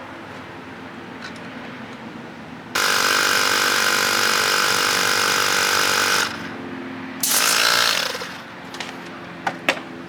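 A handheld power tool runs at a steady pitch for about three and a half seconds, then gives a second short burst that winds down in pitch as it stops. A few sharp clicks follow near the end.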